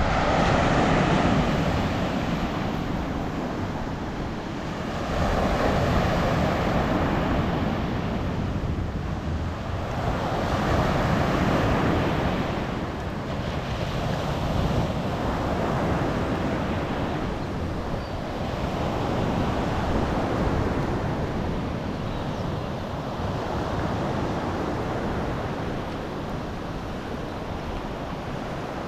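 Waves washing in on the shore, the wash swelling and fading about every five seconds, with wind on the microphone.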